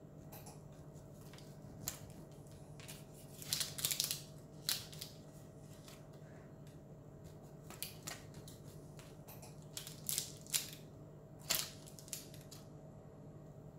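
Kitchen knife sawing slices off a freshly baked carrot cake loaf: irregular groups of short scraping strokes as the blade cuts through the crust and crumb, with pauses between slices.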